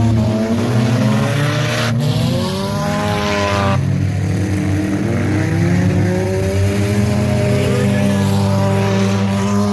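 Several bump-and-run race cars' engines running together on a dirt track, revving and easing off as the drivers accelerate, with the pitch climbing between about two and four seconds in.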